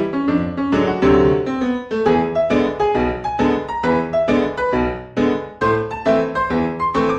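Background piano music, a light melody in quick, evenly spaced notes.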